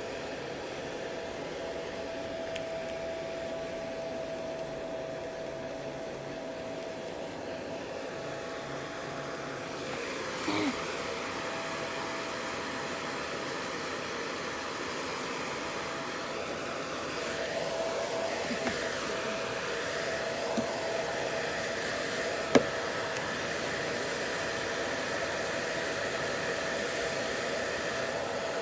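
Hair dryer blowing steadily, its tone shifting a little as it is moved, with a brief knock about a third of the way in and a sharp click about two-thirds of the way through.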